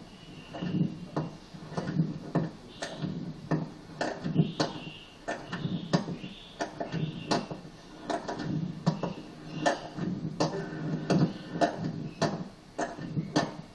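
Sharp clicks and knocks, about two a second, over recurring low pitched pulses.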